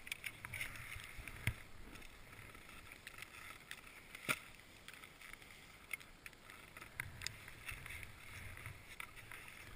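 Skis and boots shuffling and swishing in deep powder snow, with a few sharp clicks and knocks of gear being handled, the loudest about four seconds in.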